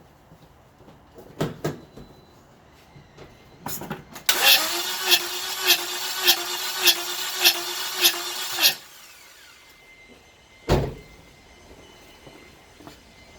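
Starter motor cranking a 2009 Toyota Corolla engine for about four and a half seconds with the injectors disconnected, so it turns over without firing, for a compression test; the cranking pulses a little under twice a second as each cylinder comes up on compression. A few light knocks come before it and a single sharp knock comes a couple of seconds after.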